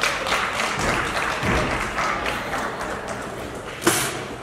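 Scattered clapping and crowd noise, with a dull thud about a second and a half in. Near the end comes a sharp knock: a gymnast's feet landing on the balance beam.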